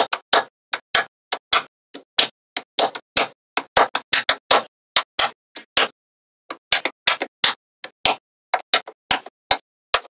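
Small metal magnetic balls clicking sharply as blocks of them are snapped onto a magnetic-ball structure: many irregular clicks, several a second, with a brief pause about six seconds in.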